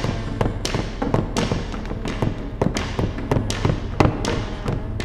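Film score: a steady run of percussion hits, about three or four a second, over a low held drone.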